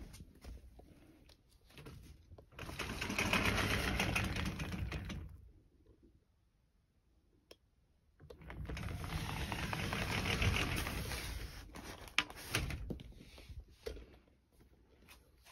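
Two stretches of rumbling, rattling handling noise, each about three seconds long, as things in the room are moved during a search, with a single sharp knock soon after the second.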